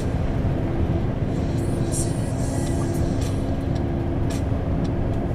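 Steady drone of a Scania R500 truck's engine and road noise heard inside the cab while cruising at highway speed, pulling a heavy load of about 61 tonnes.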